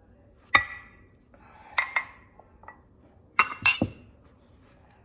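Ceramic ramekins clinking as they are handled and moved about. There are sharp, ringing clinks in three clusters: one about half a second in, a pair around two seconds in, and a quick run near the middle-end.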